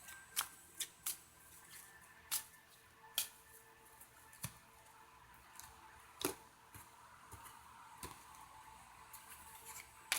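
Deck of oracle cards being shuffled by hand: a string of irregular, sharp card snaps and clicks, about eight over ten seconds.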